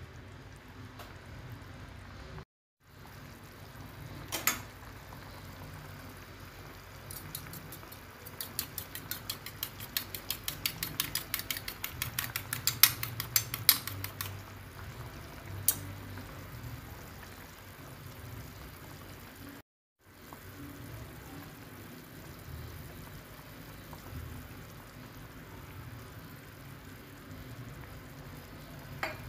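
A metal utensil clinks rapidly against cookware, about four strikes a second for some seconds, with a few single knocks before and after, over a steady background hiss.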